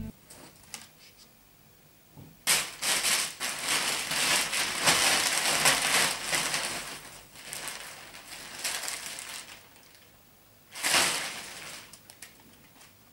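Thin plastic mailer bag crinkling and rustling as it is handled and rummaged through, in a long stretch starting about two and a half seconds in, then again briefly near the end.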